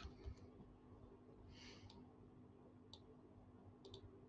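Near silence broken by a few faint computer-mouse clicks, including a quick double click near the end as a word is selected.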